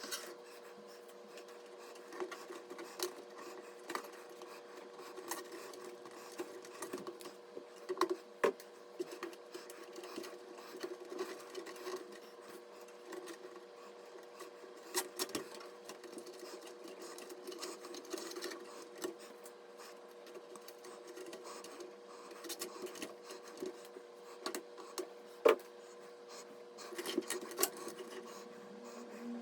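Scattered small clicks and taps of hard parts being handled, over a steady hum.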